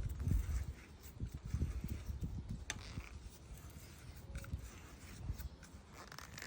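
Irregular low knocks and thuds with a few sharp clicks: hands and tools working on a BMX bike's handlebars. The knocking is densest in the first two seconds, and one sharp click comes a little under three seconds in.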